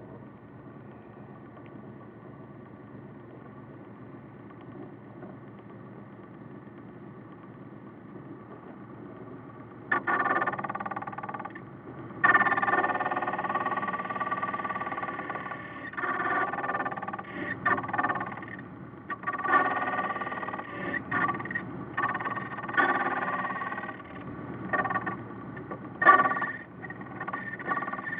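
Ilco key-duplicating machine: its GE electric motor runs with a steady low hum, then about ten seconds in the cutter starts biting into a key blank. The cutting is a loud, pitched grinding whine that comes and goes over and over as the blank is moved past the cutter.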